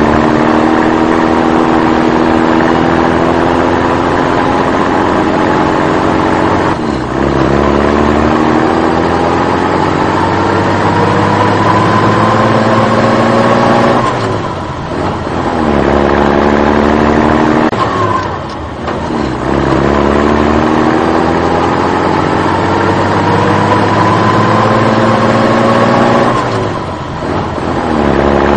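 Engine revving up again and again: its pitch climbs steadily for several seconds, breaks off, then starts climbing from low again, about five times.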